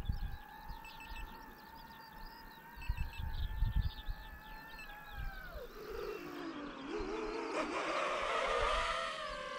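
DJI FPV drone's motors and propellers whining at a steady pitch, then dropping sharply in pitch about five and a half seconds in as the throttle comes off, wavering, and climbing back up and getting louder as the throttle is pushed again. Low gusts of wind rumble on the microphone near the start and around three seconds in.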